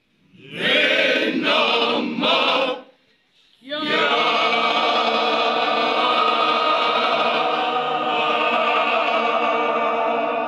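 Men's choir singing: three short chords, a brief pause, then one long held chord.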